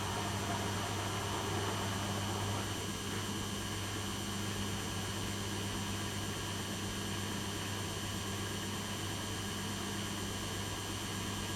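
Beko WM6255W washing machine running: a steady motor hum with a constant whirring hiss over it, easing off slightly about three seconds in.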